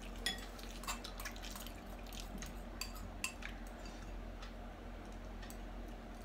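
Spoon clinking and scraping against a glass bowl while the last bits of noodles are scooped up: a scattering of sharp taps, the loudest just after the start, over a low steady hum.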